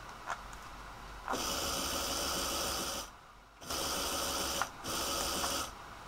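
A small fischertechnik electric motor switched on and off by infrared remote control. It runs in three steady bursts: the first starts about a second in and lasts about a second and a half, then come two shorter runs of about a second each, with brief stops between.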